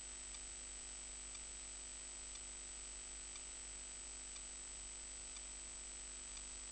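Steady electronic hiss with a constant high-pitched whine and faint ticks about once a second. It is interference or noise in the recording rather than sound from the match: no players, ball kicks or spectators are heard.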